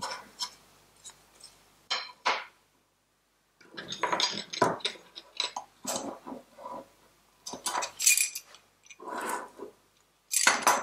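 Wooden and metal kitchen utensils being picked up, shifted and set down on a wooden tabletop: scattered light knocks and clinks in short clusters, with a brief pause about three seconds in.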